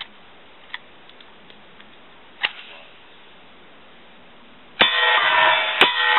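Suppressed short-barreled Uzi firing semi-auto: one sharp shot about two and a half seconds in. Near the end, music starts abruptly, with several more sharp shots over it.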